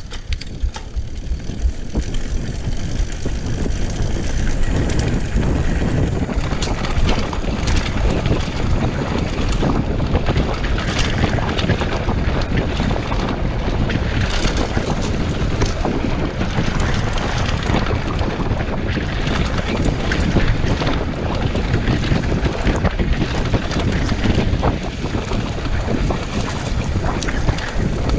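Wind buffeting the microphone as a mountain bike descends a dirt trail, mixed with tyre noise and the rattle and clatter of the bike over rough ground. It builds over the first few seconds as the bike picks up speed, then stays loud and steady.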